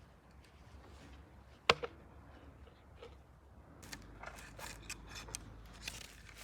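A single sharp snap about a second and a half in, then a run of light clicks and rustles from about four seconds in: old plastic garden fence netting being pulled down and handled.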